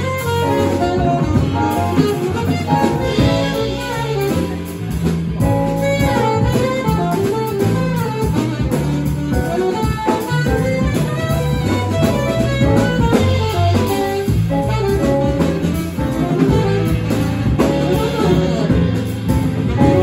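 Live jazz quartet playing: saxophone carrying the melody over piano, upright bass and drum kit.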